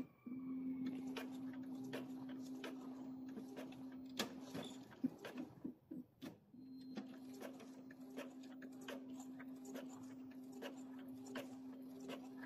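Epson ink-tank printer making a colour copy: a steady motor hum with regular clicking from the paper feed and print-head carriage. The hum stops for a second or two about five seconds in, then starts again.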